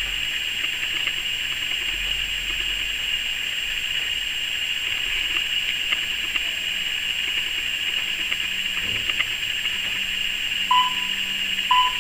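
Wooden pendulum clock ticking faintly under a steady high hiss, with two short electronic beeps about a second apart near the end.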